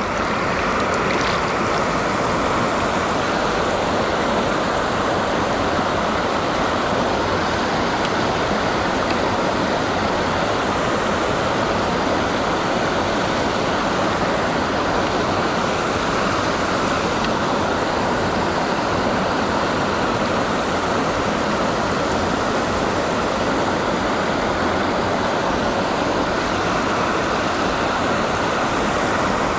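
River water rushing steadily, an even, unbroken noise of flowing current.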